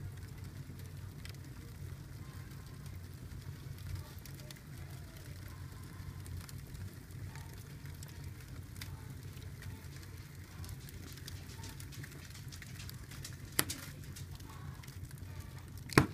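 Cardboard and logs burning in an open fireplace: a steady low rumble of the flames with scattered small crackles. There is a sharp pop a little over three-quarters of the way through and another at the very end.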